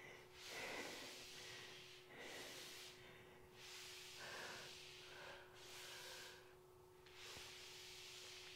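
A woman breathing hard and out of breath during exercise: about five faint breaths, one every second and a half or so, over a faint steady hum.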